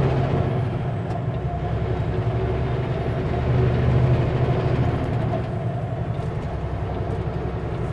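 Kenworth W900L semi truck's diesel engine running while driving, heard from inside the cab; its low drone eases about half a second in, swells again around four seconds in, then eases off.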